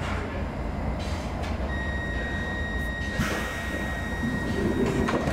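Stockholm Metro C6 train standing at a platform, with a steady low rumble from the car. About two seconds in, a steady high warning tone starts and holds, with a few knocks near the end.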